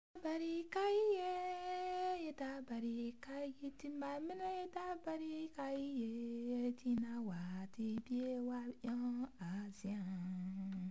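A woman singing a slow, unaccompanied melody in long held notes that step downward over the phrase.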